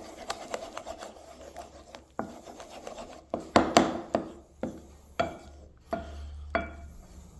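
Wooden spoon mashing and stirring banana in a non-stick frying pan: a scraping, squelchy rubbing at first, then from about two seconds in a run of irregular knocks as the spoon strikes the pan.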